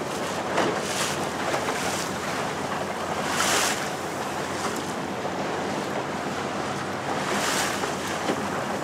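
Small motorboat under way: water rushing and splashing along the hull with wind buffeting the microphone over a low, steady motor hum. A few swells of hiss, the loudest about halfway through.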